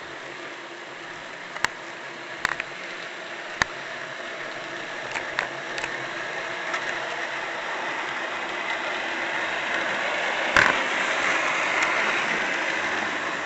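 Model train led by a Bachmann SD40-2 diesel locomotive running on its track: a steady motor and wheel whir that grows louder as it comes closer, with a few sharp clicks of the wheels over the rails, the loudest about ten seconds in.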